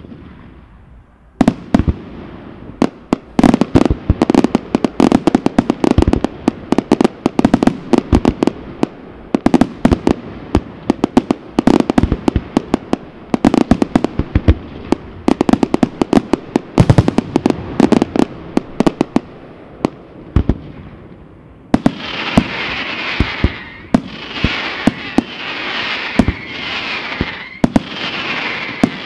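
Aerial fireworks display: a single sharp bang, then after about a second a dense, rapid barrage of shell bursts and reports for some twenty seconds. Near the end it turns into a louder hissing crackle with only a few bangs.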